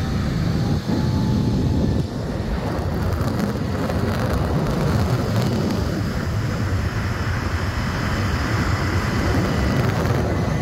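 Steady rush of wind buffeting a phone's microphone during a fast zipline ride.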